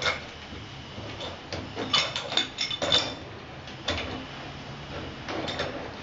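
Scattered sharp metallic clicks and scrapes as a threaded fitting on an old water pipe in the wall is worked by hand, in irregular clusters.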